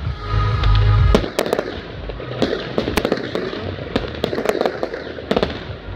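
Professional fireworks display: a rapid, irregular series of sharp bangs and crackles from bursting shells, with a heavy low rumble in the first second.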